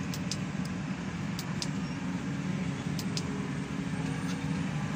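New Holland T7.260 tractor's six-cylinder diesel engine running steadily under load while pulling a plough, heard from inside the cab. A few light clicks, several in the first second and a couple around three seconds in.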